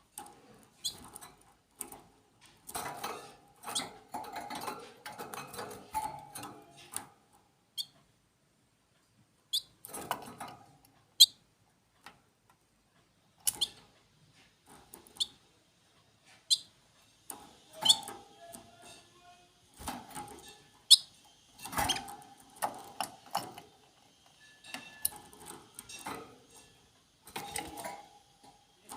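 Small birds giving short, sharp, high chirps now and then, among irregular clicks and rustling.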